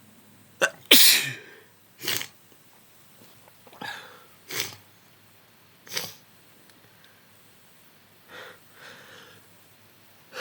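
A person with a thick head cold sneezes once, loudly, about a second in, then sniffs five or six times through a congested nose, the last sniffs fainter.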